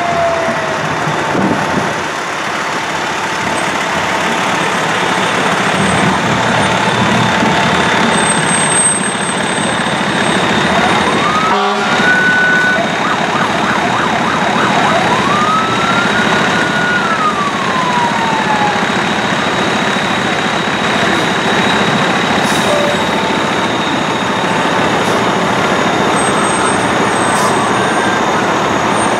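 Fire engines rolling past with their diesel engines running. Around the middle a siren winds up twice to a high pitch, holds, and the second time falls away slowly; another starts to rise at the very end.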